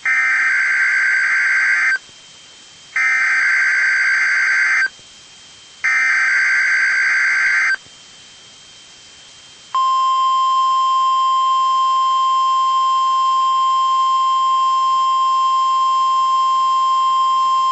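NOAA Weather Radio emergency alert broadcast sending three bursts of SAME digital header data, each a harsh buzzing screech about two seconds long with a short pause between them. About ten seconds in, the steady single-pitch warning alarm tone starts and holds without a break: the routine weekly test of the alert system.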